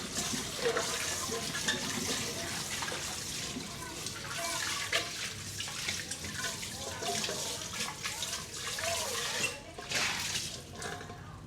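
Tap water running and splashing in a kitchen sink as dishes are washed by hand, with a few light knocks of dishware.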